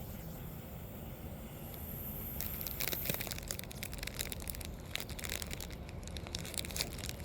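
A lit clay colour smoke ball burning off, hissing faintly at first and then giving many scattered short crackles from about two and a half seconds in.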